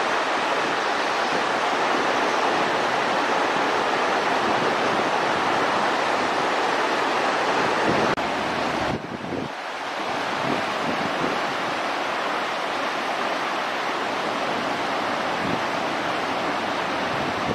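A steady, even rushing noise, with a brief dip in level about nine seconds in.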